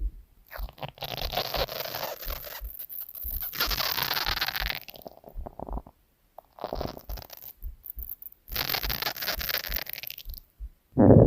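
A person's stomach gurgling in four or five crackly bursts, each a second or two long, with short pauses between.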